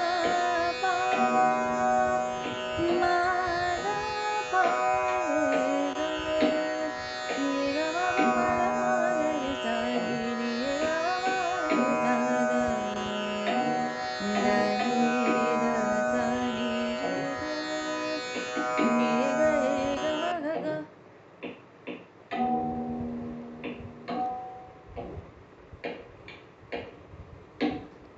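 Hindustani classical music in raag Yaman: a gliding melody over a steady drone, with tabla. About twenty seconds in the drone cuts off suddenly and the music thins to sparse strokes and short notes.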